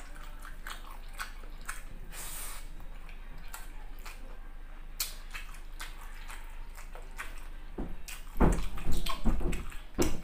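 Wet chewing and mouth clicks of a person eating a mouthful of rice by hand, heard close up, with many small sharp clicks. Louder, heavier sounds come in about eight seconds in.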